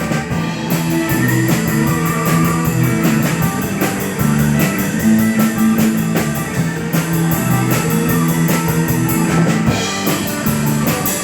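Rock band with electric guitars, bass, keyboard and drum kit playing an up-tempo rock song, the cymbals keeping a fast, even beat.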